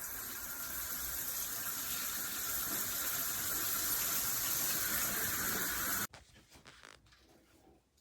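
Water running from a Moen Magnetix shower head, a steady spray noise that stops abruptly about six seconds in.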